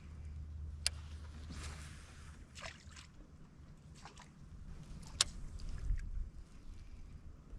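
Small sounds of handling gear in a fishing kayak: two sharp clicks or knocks, a few short swishing noises and a low steady rumble.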